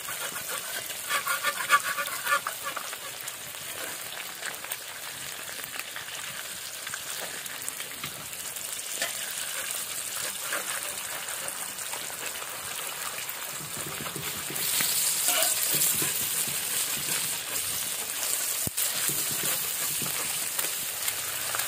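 Two eggs frying in hot oil in a black wok: a steady sizzle that grows louder about two-thirds of the way through as the pan starts to smoke. A short rapid rattling sound comes about a second in.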